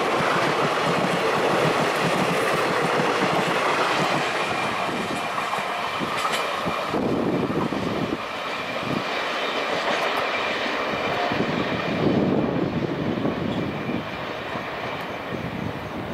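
Express train's blue passenger coaches running past on the rails with a steady rattle and clatter. From about halfway the train recedes: the clatter thins to separate wheel thumps over the rail joints and grows fainter.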